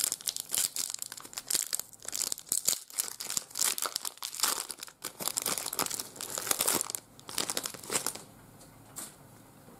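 Foil trading-card pack wrapper crinkling and tearing as it is opened, a dense run of crackles that stops about eight seconds in.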